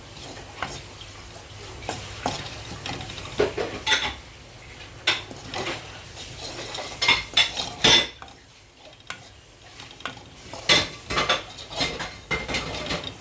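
A utensil stirring and scraping samosa masala in a pan, with irregular clinks and scrapes against the metal and a short pause a little past the middle.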